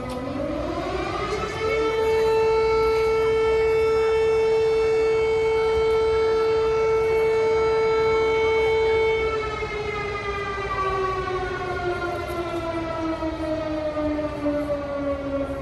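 Civil defense siren sounding an alert. It winds up in about a second and a half, holds one steady pitch for about eight seconds, then slowly winds down over the last six seconds.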